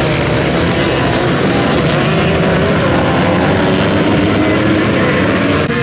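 A pack of motocross bikes racing together, many engines running at high revs at once with their pitches overlapping and shifting.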